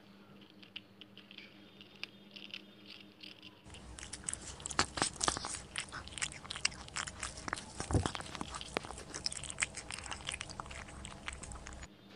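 A cat chewing and crunching dry biscuit pieces, a quick run of short crisp crunches that grows louder and busier from about four seconds in.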